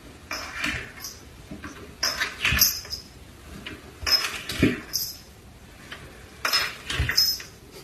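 A cat slipping down wooden stairs on its back one step at a time, with a bump and a rattle about every two seconds, four times.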